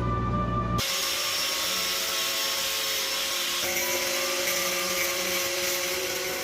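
A power tool running steadily, a dense high-pitched hissing whir with a faint whine in it. It starts about a second in as the music cuts out, and stops just at the end.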